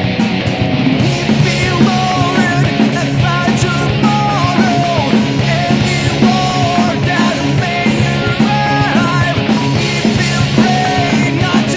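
Rock music with electric guitars and drums, a sliding lead melody over a steady beat.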